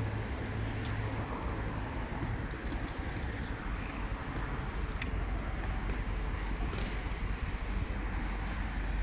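Steady low rumble of a nearby car and street traffic, with a few light clicks and knocks from a suitcase being handled, about one, five and seven seconds in.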